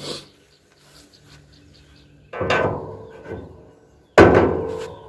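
Two sharp metal clanks about two seconds apart, the second louder, each ringing on as it dies away, from work on a truck's hood hinge and hinge springs.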